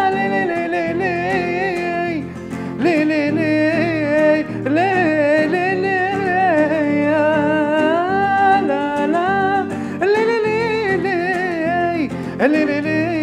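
A man singing long, ornamented vocal lines that slide between notes, accompanied by his own strummed nylon-string acoustic guitar.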